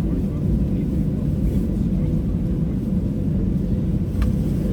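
Airliner cabin noise: a steady low rumble with a faint hum, from the engines and airframe as the aircraft taxis after landing. There is a single click about four seconds in.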